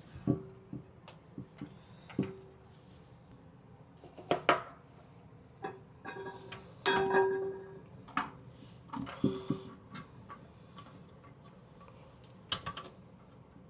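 Irregular clicks and clinks of hand tools and metal hardware as the toilet's tank bolt nuts are tightened, several with a brief ringing tone; the loudest cluster is about seven seconds in.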